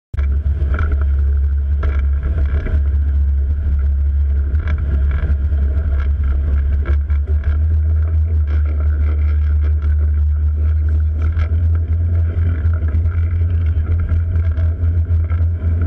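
Mersey-class lifeboat's twin diesel engines running steadily under way, a constant deep drone, with water splashing and slapping against the hull.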